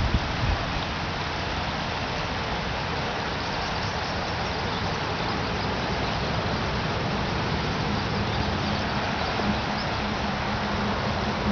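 Steady rushing outdoor background noise, with a brief low thump right at the start and a faint low hum joining in about seven seconds in. No goose or gosling calls stand out.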